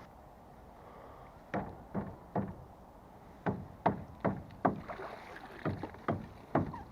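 Scrap metal from magnet fishing knocking and clanking: about ten sharp knocks, each with a short ring, starting about a second and a half in and coming irregularly, a few to the second.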